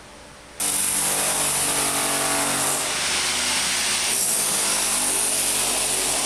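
A power tool starts abruptly about half a second in and runs steadily at full speed, with a motor hum under a loud hiss.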